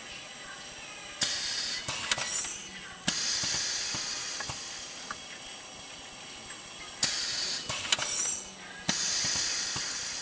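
An automatic indexing drilling machine running through its cycle: sudden rushes of hiss with sharp clicks come in pairs about two seconds apart. The pairs repeat about every six seconds.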